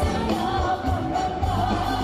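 Music with a wavering sung melody over low, pulsing drum beats.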